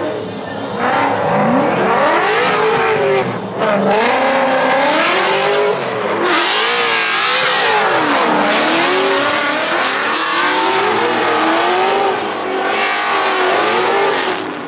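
Formula Drift car, a Falken Ford Mustang, drifting with its engine revving hard, pitch swinging up and down repeatedly as the throttle is worked through the slide, over the hiss and squeal of spinning rear tyres.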